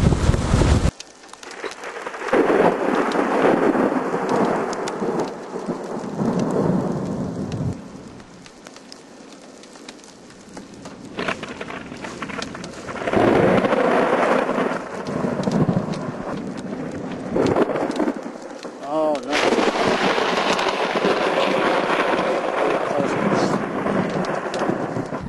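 Thunder rolling in long rumbles that swell and fade several times, with rain falling. For about the first second, before a cut, wind buffets the microphone.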